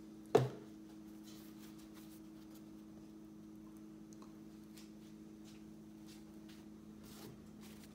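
Faint scraping and light taps of a table knife spreading mayonnaise over slices of French bread, over a steady low hum. A single sharp knock sounds about half a second in.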